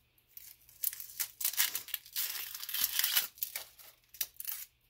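Dry, papery onion skin crackling and tearing as it is peeled off a large onion by hand. It comes as a run of quick, crisp rustles, densest through the middle and thinning near the end.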